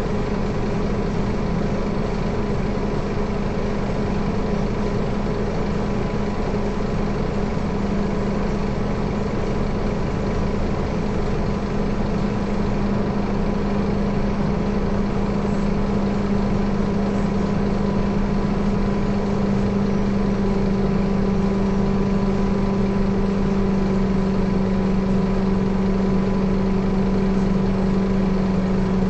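Scania K230UB bus's 9-litre five-cylinder diesel idling, heard from inside the passenger cabin as a steady low hum.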